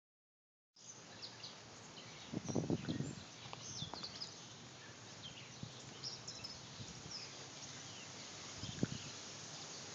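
Birds chirping in short, scattered calls over a steady outdoor hiss, with a cluster of soft thumps and rustles about two and a half seconds in and a single thump near the end.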